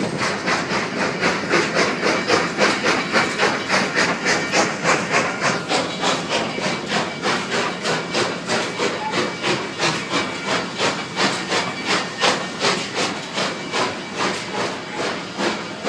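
Narrow-gauge steam locomotive chuffing in a steady rhythm of about two to three hissing exhaust beats a second, working the train along the line.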